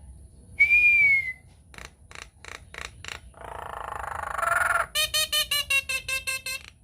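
Common myna singing: a loud clear whistle, a run of short dry clicks, a harsh rasping note, then a fast series of repeated chattering notes.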